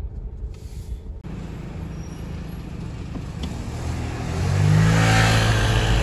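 Motor vehicle engine and road noise: a low rumble that grows louder about four seconds in, with a steady engine hum and tyre hiss.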